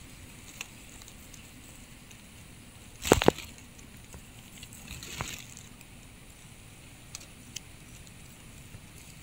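Brief splashing and sloshing of water in a small flooded eel hole about three seconds in, the loudest moment, with a softer slosh about two seconds later and a few faint ticks.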